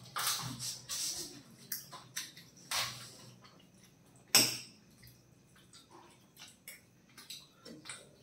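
Teaspoons scraping and clicking against plates while parotta soaked in kurma is eaten, mixed with wet eating sounds, in scattered short bursts, the loudest about four seconds in.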